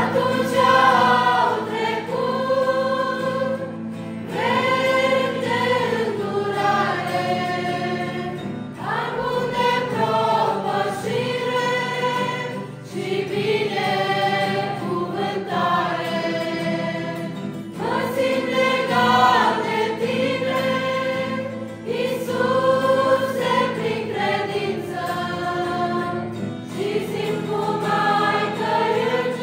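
Mixed youth choir singing a Romanian Christian song in long phrases, accompanied by an acoustic guitar.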